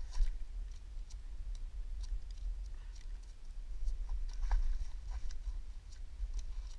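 Small fish flopping on the dry dirt and leaf litter of a bank, giving scattered faint ticks, slaps and rustles over a steady low rumble.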